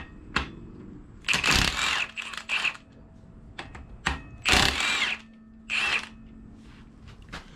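Handheld power tool run in several short bursts, about five in all, the first and fourth the longest, while loosening bolts to get the number 6 piston out of the engine.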